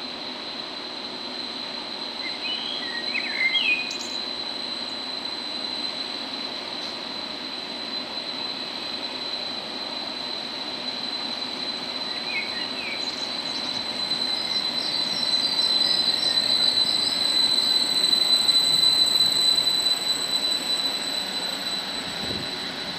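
Greater Anglia Class 745 Stadler FLIRT electric multiple unit arriving and slowing into the platform. There is a steady high whine and running rumble that grow louder as the train draws alongside, with brief squeals as it brakes to a stand.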